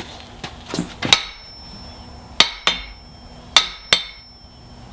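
Hammer striking an anvil face in a rebound test: three pairs of sharp clanging hits, each bounce following about a third of a second after the blow, with a short metallic ring.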